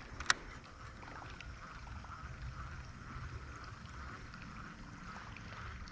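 Creek water running steadily as a faint, even rush, with one sharp click about a third of a second in.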